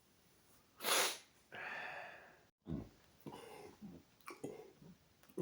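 Quiet breathing and sniffing: a sharp, noisy breath about a second in, then a few short, soft sounds from the nose and throat.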